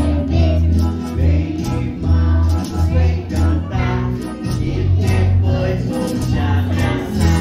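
A children's song with a steady beat and a strong bass line, sung by a group of young children.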